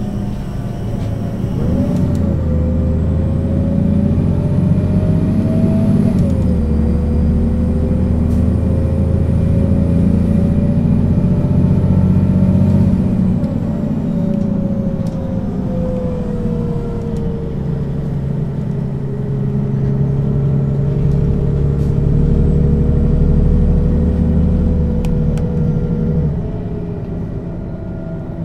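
Mercedes-Benz O 530 G Citaro articulated bus with a ZF gearbox accelerating under power. The engine and drive whine climb in pitch, drop at a gear change about six seconds in, and climb again. They ease off from about fourteen seconds, pull once more, and then back off near the end.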